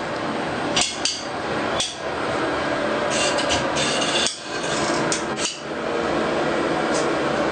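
Scattered sharp knocks and clicks from a glass shower panel being handled in its metal track, heard over a steady background noise.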